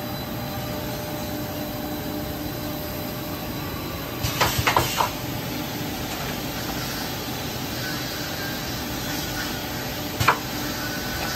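Steady din in a steel radiator-panel workshop, with sharp metallic clanks as steel panels are handled on the production line: a quick cluster of several knocks about four seconds in and a single sharp knock near the end.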